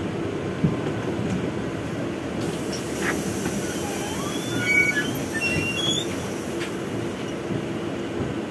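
Steady hum and rumble inside a Trolza Optima trolleybus standing at a stop, with street traffic in the background. A few short high-pitched chirps come about halfway through.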